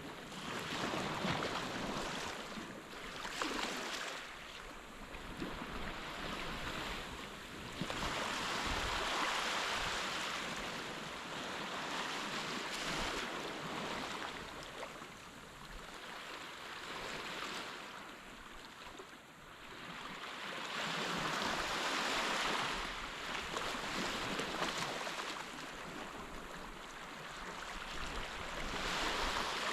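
Sea surf washing onto a sandy beach, the hiss of the waves swelling and receding every several seconds.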